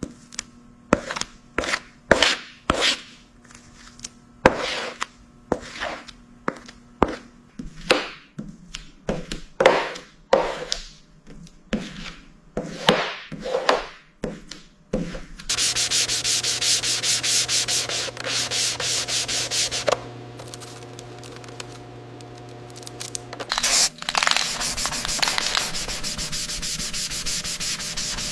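Sanding: a run of separate scraping strokes, roughly one or two a second, gives way about halfway through to steady, continuous sanding with a machine hum underneath. The continuous sanding eases off for a few seconds and then starts up again.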